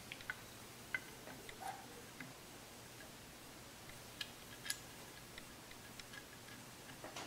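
Faint, scattered small clicks and taps from fitting a rifle's trigger guard and its two small screws by hand, a few sharper ticks standing out among them.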